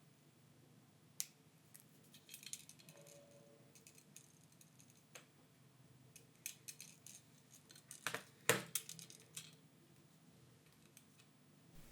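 Faint scattered clicks and light taps of small tools and plastic-and-metal phone parts being handled, as flex cable connectors are pressed onto a smartphone motherboard. The loudest cluster of clicks comes about eight seconds in.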